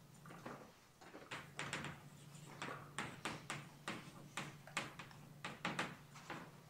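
Chalk on a blackboard as words are written: a quiet, quick, uneven series of taps and short scrapes, starting about a second in.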